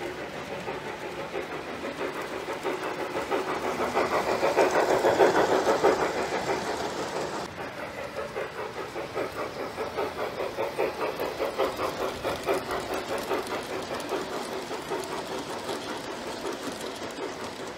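Model trains running on the layout track: a steady, rhythmic clatter of running gear. It swells to its loudest about five seconds in, changes abruptly partway through, then goes on evenly.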